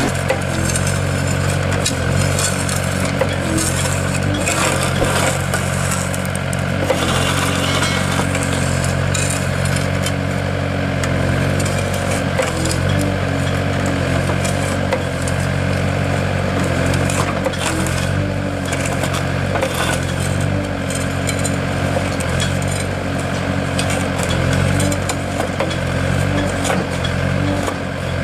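Engine of a heavy road-construction machine running steadily, with scattered clinks and crunching.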